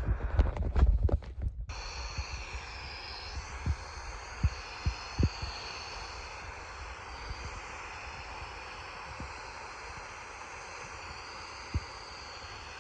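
Radio receiver static from a weak or absent signal: a burst of loud crackling for the first couple of seconds, then a steady hiss with a faint warbling whine high up and a few scattered pops.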